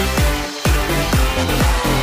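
Electronic dance music with a deep kick drum whose pitch drops on each hit, keeping a steady beat.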